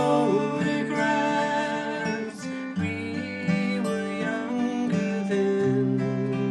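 Folk song played live on two acoustic guitars, strummed and picked, with a sung vocal line held over them during the first part.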